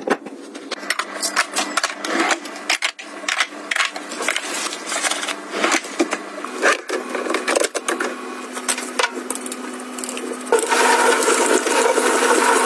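Scattered clicks and knocks of drawer dividers being fitted and handled in a kitchen drawer. From about ten seconds in, a kitchen tap runs water into a steel sink, louder and steady.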